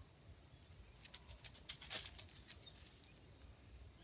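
Dry leaf litter crackling under a red junglefowl rooster foraging: a quick run of faint crackles about a second in, loudest near the middle.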